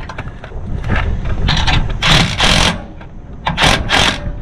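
Ratchet wrench clicking in short strokes, about five bursts in two groups, as nuts on a SumoSpring mount's bolts are run up evenly, over a low steady rumble.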